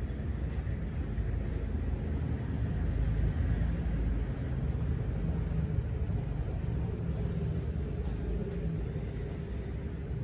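Steady low rumble of background noise, with a faint steady hum rising out of it in the second half.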